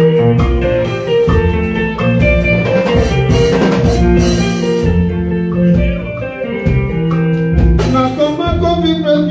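Live band playing: electric guitar lines over bass guitar and drum kit, with a singer's voice at times.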